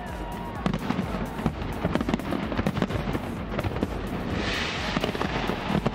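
A big aerial fireworks display going off: a dense, irregular run of bangs and crackles. A hissing crackle joins about four and a half seconds in.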